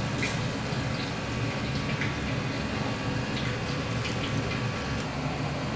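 Freshly fried, still-hot hatahata fizzing and bubbling in cold nanban vinegar marinade: a steady watery hiss with a few small pops.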